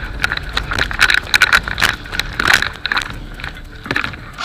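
Movement noise of an airsoft player on the move: irregular clicks, knocks and crunches of footsteps on rubble and gear, over a steady low rumble of wind and handling on a helmet camera.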